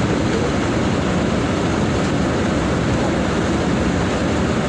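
Mercedes-Benz OF 1722M bus running steadily, a loud, even engine and ride noise with no change in pitch.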